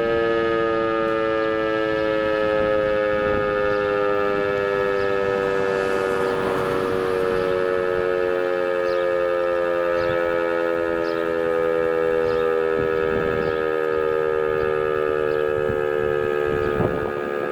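DS 977 civil-defence siren sounding a monthly test tone: several steady tones at once, their pitch sinking slowly. Gusts of wind rumble on the microphone.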